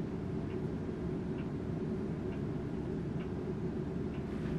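A clock ticking faintly, about once a second, over a steady low hum of room noise.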